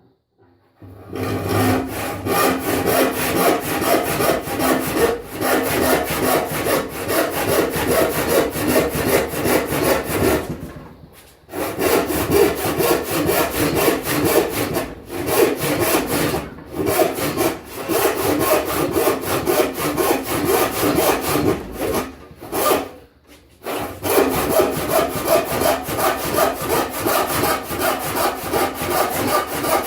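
A hand panel saw rip-cutting a wooden board along the grain, in steady back-and-forth strokes. It starts about a second in and stops briefly a few times, with the longest pauses near the middle and about three-quarters of the way through.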